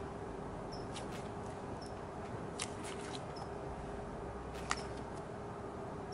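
Jelly slime made with instant snow powder being squeezed and stretched by hand, giving a few scattered sharp pops and crackles, the loudest a little before five seconds in, over a steady hiss and faint hum.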